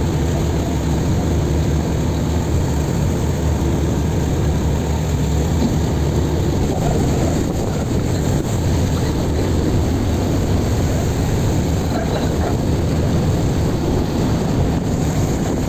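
Fishing boat's engine running steadily, a low, even hum.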